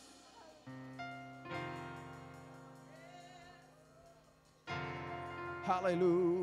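Worship keyboard playing slow, sustained chords, with a new chord struck a few times. Near the end a voice sings a loud, held note with a wavering vibrato over the chords.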